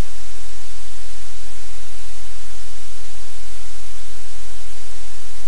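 Loud, steady static hiss over a low hum, unchanging throughout, with no distinct sound standing out.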